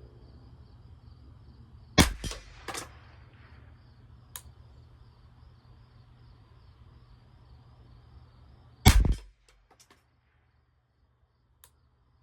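Ruger 10/22 Target Lite semi-automatic .22 LR rifle firing SK Rifle Match rounds: sharp shots, two or three close together about two seconds in, then a quick cluster of shots about nine seconds in, with a few faint clicks between.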